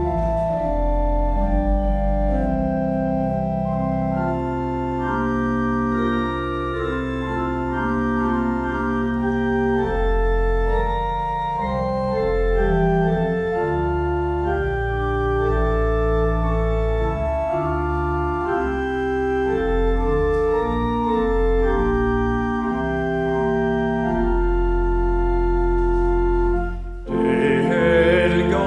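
Church pipe organ playing slow, held chords over a deep pedal bass. Near the end the organ breaks off for a moment and a voice with strong vibrato begins singing.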